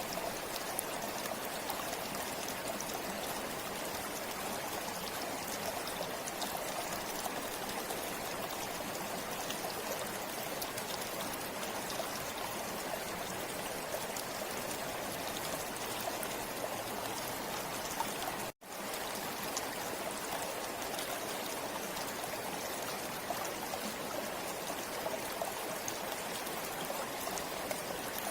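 River water flowing steadily over rocks, an even rushing with fine splashing. The sound cuts out for an instant about two-thirds of the way through.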